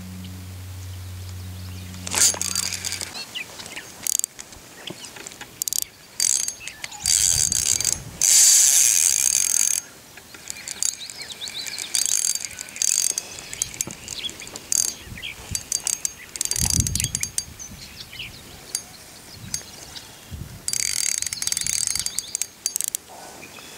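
Fishing reel being cranked in irregular bursts, its gears and ratchet clicking and whirring as line is wound in against a hooked bass.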